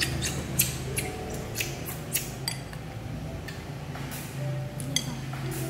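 Irregular light clicks and clinks of kitchen utensils handled during cake-making, about two a second, over a steady low hum.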